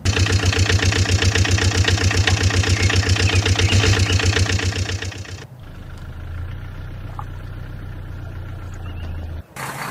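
Engine sound with a loud, fast, even chugging. About five and a half seconds in it changes to a quieter steady hum, which drops out briefly near the end before a brighter sound starts.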